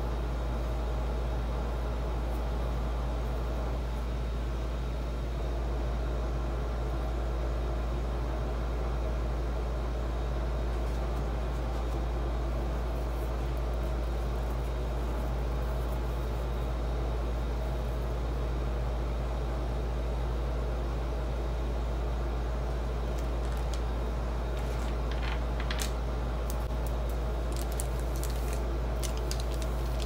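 A steady low hum, like a running motor, unchanging throughout, with a few light clicks in the last several seconds.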